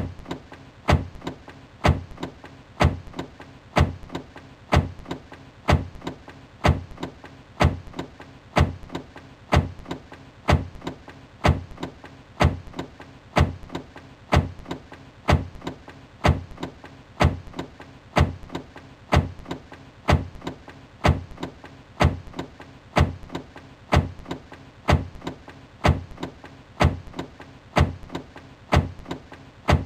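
Car door slamming shut over and over, one slam about every second in an even loop, with lighter clicks between the slams and a faint steady hum underneath.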